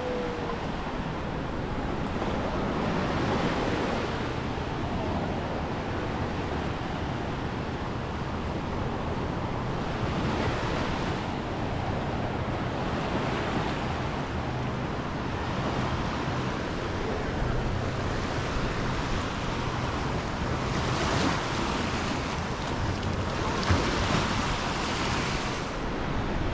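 Low surf breaking and washing up a sandy beach, the wash swelling with each wave every few seconds, with wind buffeting the microphone.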